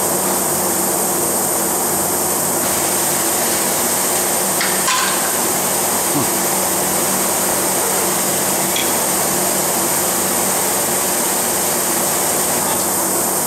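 Steady whirring hum of a Fanuc M-1iA delta-robot candy cell running, with its outer dial turning while the robot picks Starburst candies. A few light clicks of the gripper taking candies come around the middle.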